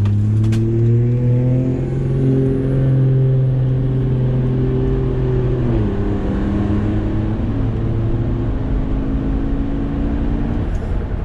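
Car engine at full throttle through a drag-strip pass, heard from inside the cabin. The pitch climbs, drops sharply at an upshift about six seconds in and again a second and a half later, and the engine note fades out near the end as the throttle is lifted.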